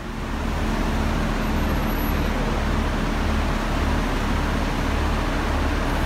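Steady road-traffic noise: motor vehicles running along the kerbside roadway, with a low rumble that swells and fades in a regular pulse.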